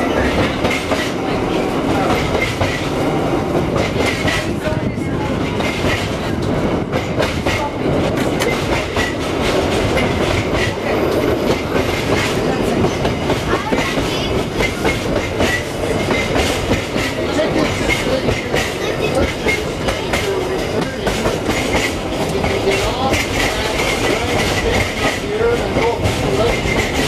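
Electric streetcar running along its track, heard from aboard: a steady rolling rumble with frequent clicks of the wheels over the rails.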